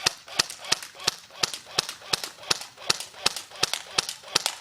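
JG G36C electric airsoft rifle firing a rapid string of single shots, about three a second, each a sharp crack.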